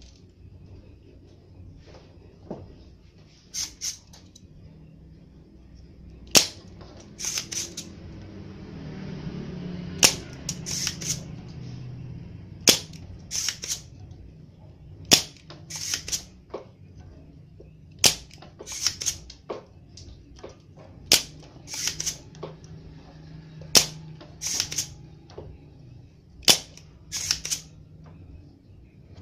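Spring-loaded desoldering pump snapping sharply as its plunger is released to suck molten solder off a circuit board, each snap followed by a couple of lighter clicks, repeating about every three seconds.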